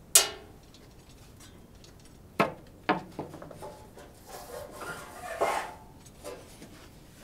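Handling noises: a sharp metallic clank with a short ring right at the start, two more knocks about two and a half seconds in, then a stretch of rubbing and scraping.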